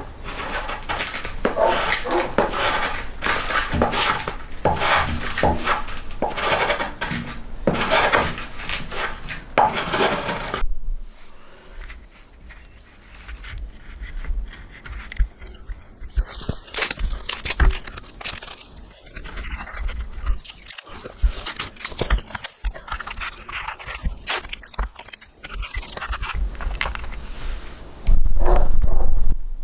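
A hand tool scraping or rasping across wood in fast, repeated strokes. About ten seconds in it stops abruptly, giving way to quieter scattered knocks and handling sounds, with a loud low thump near the end.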